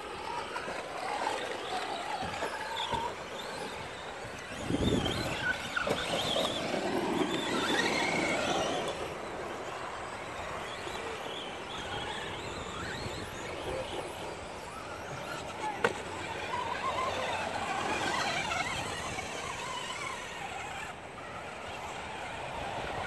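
Radio-controlled off-road cars racing on a dirt track, their motors rising and falling in pitch as they speed up and slow down. There is a low thud about five seconds in.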